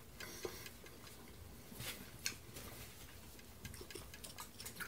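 Faint, irregular mouth clicks of a person chewing a small soft candy, with one louder click a little after two seconds in.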